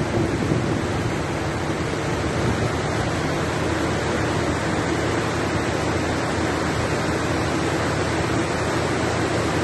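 Heavy rain pouring down in a constant rushing hiss, with a steady low hum underneath.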